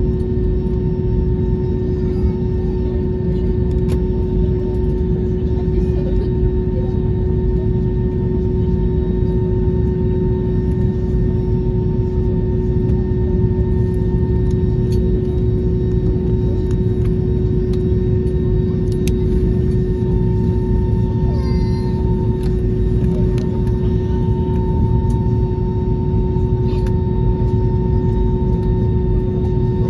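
Airbus A321neo cabin noise while taxiing: a steady low rumble from the Pratt & Whitney PW1133G geared turbofans at idle, with a steady hum tone running through it.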